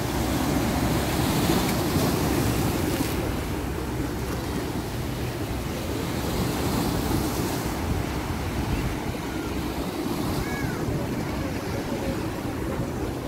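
Sea waves washing in over rocks, a steady rushing surf that swells louder about a second in and again around seven seconds.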